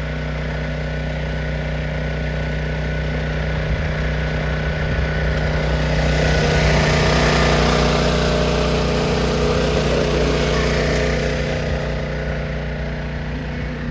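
Small pull-start gasoline engine on a water pump running steadily after being primed. A broad hiss swells louder about five seconds in and fades again near the end.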